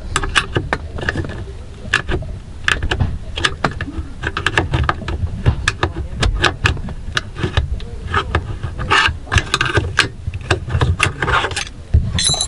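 Screwdriver and small hand tools working on a metal aftermarket short-shifter assembly: a run of irregular clicks, taps and scrapes of metal on metal.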